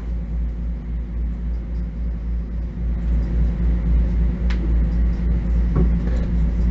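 Low, steady rumble and hum inside a Bombardier M7 electric railcar, with a couple of faint clicks about four and a half and six seconds in.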